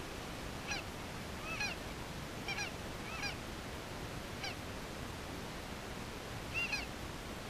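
Geese honking: about six short calls spread over several seconds, several of them two-note, fairly faint.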